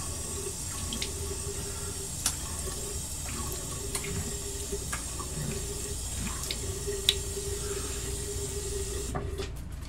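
Water running steadily from a bathroom sink tap, with small splashes and clicks, turned off shortly before the end.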